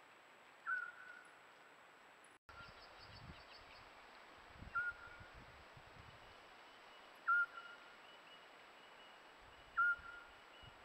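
Eurasian scops owl calling: a single short whistled note, starting slightly higher and then held, repeated about every two and a half seconds. Soft clicking about two and a half seconds in, and faint low rustles later.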